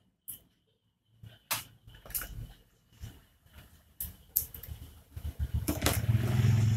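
Scattered clicks and taps of small hand tools and the plastic speedometer cluster being handled on a cutting mat. A low droning rumble builds in the last second or so and is the loudest sound.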